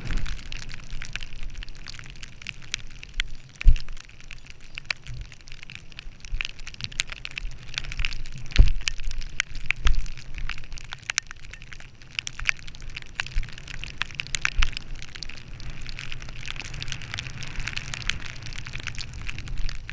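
Skis sliding and scraping over snow: a steady hiss dotted with many small crackles, over a low rumble. A few dull thumps stand out, the loudest about four and nine seconds in.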